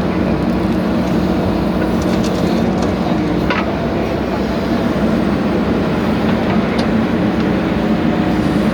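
JCB backhoe loader's diesel engine running steadily under work, with a few faint clicks partway through.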